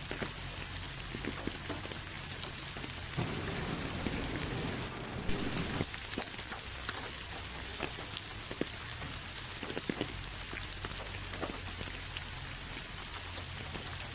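Steady rain: an even hiss with many separate drops striking close by as sharp ticks. A low rush swells for a few seconds from about three seconds in.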